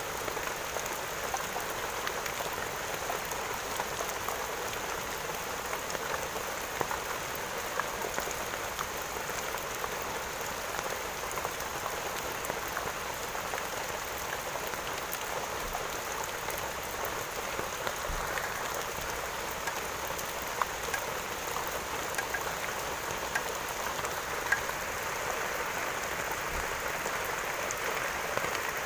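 Steady rain falling on a surface, a continuous hiss dotted with individual drop ticks.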